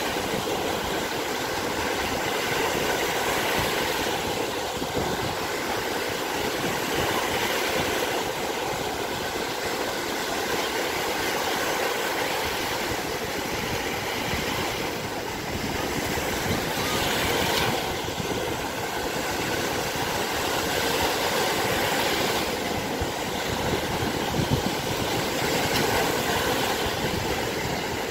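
Small waves on Lake Michigan breaking and washing up a sandy beach: a steady rushing surf that swells every few seconds as each wave comes in.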